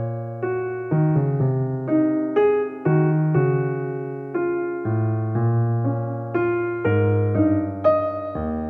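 Background music: a solo piano playing a slow melody over low bass notes, a new note struck about every half second and each one fading away.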